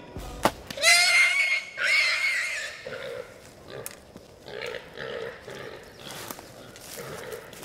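A sharp smack about half a second in as an arrow strikes a feral hog, then the hit hog squeals loudly for about two seconds. Shorter, lower hog grunts follow as the herd scatters.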